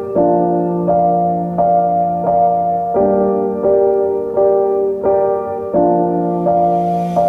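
Background music: slow piano or keyboard playing sustained chords, with a new chord or note struck about every three-quarters of a second.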